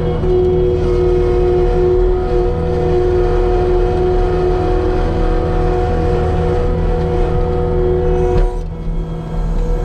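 New Holland L220 skid steer's diesel engine running steadily under load with a steady whine over it, dropping briefly near the end before picking back up.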